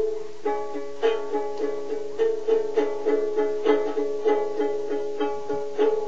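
Ukulele strummed over and over on one chord in an even rhythm, about three strums a second.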